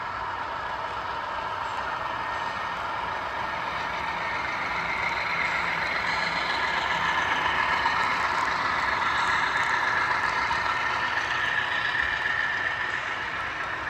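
HO scale model train led by Rapido Dash 8 diesel locomotives running past, followed by a string of coal hoppers: a steady rolling noise that grows louder as the locomotives come close and eases off slightly near the end as the hoppers roll by.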